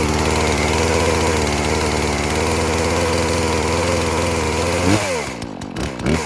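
Poulan Pro two-stroke chainsaw idling steadily, then revved in quick throttle blips, rising and falling in pitch, about five seconds in and twice more near the end.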